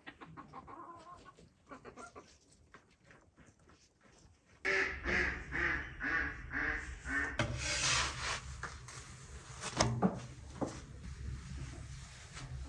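Domestic hens clucking: faint at first, then louder from about four and a half seconds in, over a low rumble.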